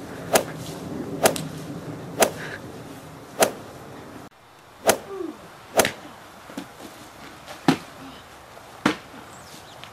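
Punches landing: eight sharp smacks about a second apart, with a few fainter knocks between them.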